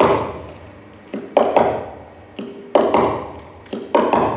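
Sharp percussive knocks, mostly in quick pairs about a fifth of a second apart, recurring roughly every second and each ringing out in a reverberant hall.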